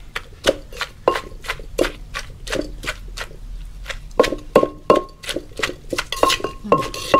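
Wooden pestle pounding shredded green papaya salad in a clay mortar: a steady run of knocks, about three a second, many with a short ring.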